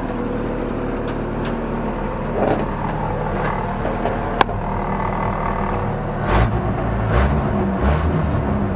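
1972 Chevrolet Opala four-cylinder engine running with a steady low rumble. About six seconds in it turns louder and uneven, with a short pulse roughly every second; a single sharp click is heard near the middle.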